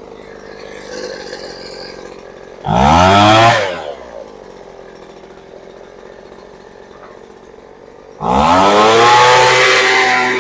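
Poulan Pro gas leaf blower's two-stroke engine idling, blipped to high revs twice. About three seconds in it revs up and falls back to idle after a second. About eight seconds in it revs up again and holds there. The idle and mixture screws are being tuned after a carburetor rebuild.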